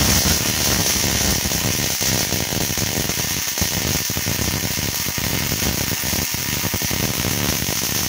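MIG/MAG welding arc running one continuous bead with 0.9 mm wire at 18.3 V and 130 A: a steady, dense crackling buzz of short-circuit transfer.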